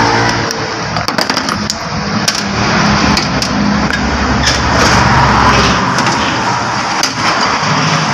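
A motor vehicle's engine running in the background with a steady low hum that stops about six seconds in, over a constant noisy din. Scattered light clicks of metal window-regulator parts being handled.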